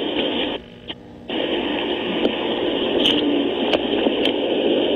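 Steady, thin, radio-like hiss of a police dashcam's wireless microphone feed, which drops out briefly about a second in. Four scattered sharp clicks and crackles come through in the second half.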